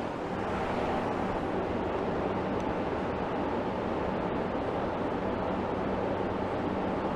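Steady background hiss with a faint low hum, unchanging throughout; no distinct pencil or handling sounds stand out.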